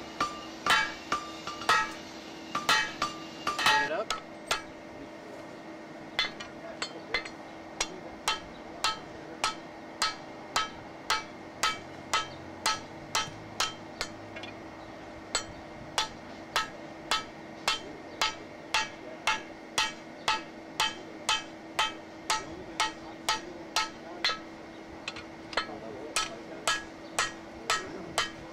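Hammer blows on hot steel bar stock in a bottom swage on an anvil, a steady run of ringing strikes about two a second. The first few blows are louder, and there is a short pause about halfway through.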